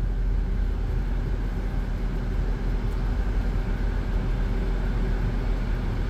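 Steady low rumble inside the cabin of a 2023 Chrysler Pacifica minivan as it reverses into a parallel parking space under its automatic park assist.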